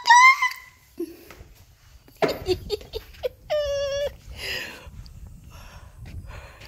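A person's short high-pitched giggle, then rustling and knocking noises, and a held vocal note lasting about half a second, a little past the middle.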